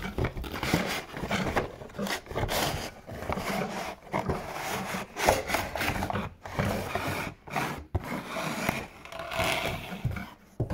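Cardboard boxes and toy packaging handled by hand on a wooden table: irregular scraping, rubbing and light knocks as the boxes are slid and moved.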